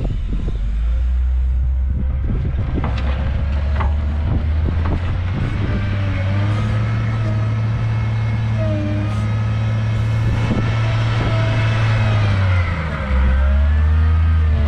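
Volvo L70F wheel loader's diesel engine working under load as the machine pushes into a pile of rock and soil, with a whine above the engine note. The revs climb, hold high, then drop back near the end.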